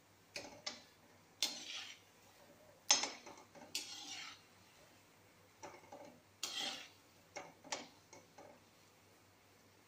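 A perforated metal frying spoon (jhara) scraping and clinking against the side of a metal kadhai, in about a dozen short, irregular strokes, as gulab jamun frying in oil are slowly turned.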